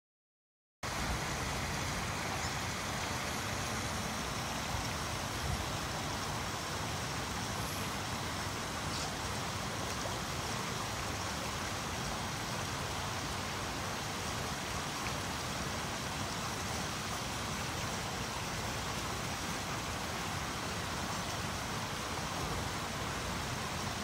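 Steady rushing of water from a garden pond's small waterfall, a continuous even hiss that starts about a second in.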